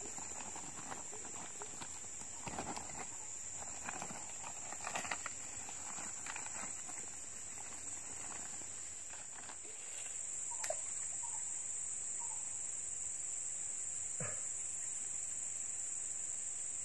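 A steady, high-pitched insect drone, with scattered short rustles and clicks in the first half.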